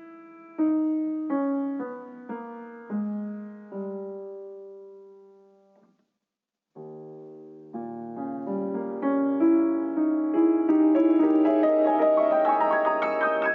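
Solo piano music: a few slow notes that ring and die away to a brief silence about six seconds in, then the playing resumes and builds into quicker, fuller passages.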